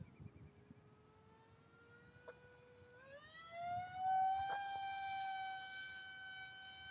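XING E Pro 2207 brushless motor spinning a three-blade 5x4.5 propeller on a small RC plane in flight: a thin, high whine, steady at first. About three seconds in it speeds up, rising in pitch and growing louder, then holds at the higher note.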